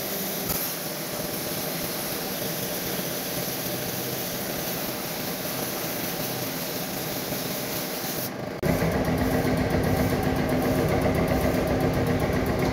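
A motor or machine running with a steady hum. About two-thirds of the way in it cuts suddenly to a louder, deeper steady hum.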